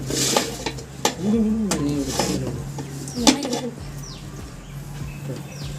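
Large metal lid, heaped with burnt charcoal for the dum, knocking and scraping against the rim of the biryani pot as it is lifted off, with a few sharp clanks, the loudest about three seconds in. The clanks mark the pot being opened after the dum.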